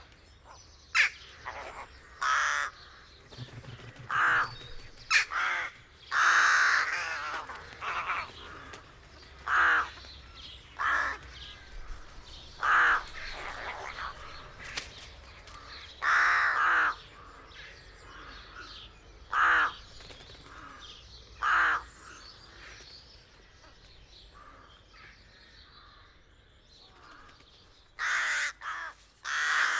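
Rooks cawing at the rookery: harsh, separate caws at irregular intervals, with a lull of several seconds before a quick run of calls near the end.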